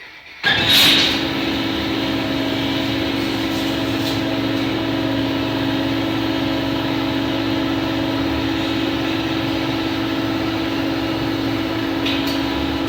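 Metal lathe starting up about half a second in, then running steadily with a constant hum. A few brief higher-pitched sounds come through it, near the start, around four seconds in and near the end.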